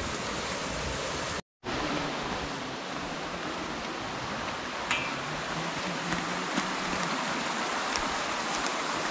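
Steady rushing outdoor noise with no clear pitch, broken by a brief total dropout about one and a half seconds in, with a few faint clicks later.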